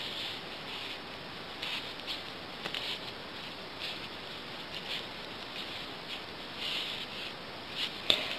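Knitting needles ticking and scraping against each other as stitches are knit, with the wool rustling: faint, irregular little clicks about one or two a second.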